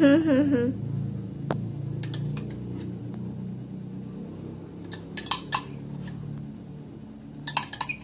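A spoon clinking and scraping against a glass cup of requeijão as the cheese is scooped out and dropped in dollops, with short clusters of clinks about two, five and seven and a half seconds in.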